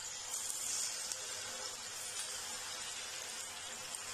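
Hot oil sizzling steadily in a kadai as pieces of semolina (rava) pakora batter deep-fry in it.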